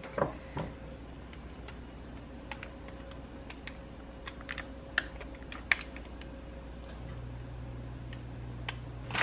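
Silicone spatula stirring thick banana bread batter and scraping it from a glass mixing bowl into a foil loaf pan: scattered light clicks and taps, faint over a steady low hum. A second low hum comes in about seven seconds in.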